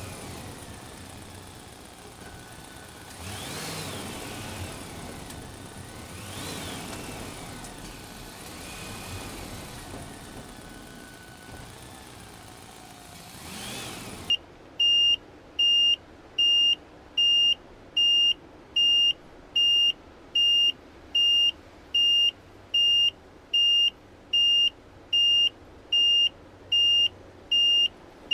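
Small electric motors and gearing of a radio-controlled toy excavator whining, rising and falling in pitch several times, with a faint steady tone under them. About halfway through, a loud, high electronic beep starts and repeats evenly, about three beeps every two seconds.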